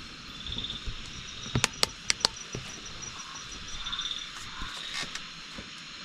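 Night insects chirring steadily, with a faster high ticking call joining for about three seconds. Four sharp clicks come close together around two seconds in.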